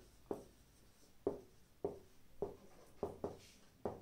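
Marker pen writing on a whiteboard: quiet, short, sharp taps and strokes, about seven in four seconds, as a word is written letter by letter.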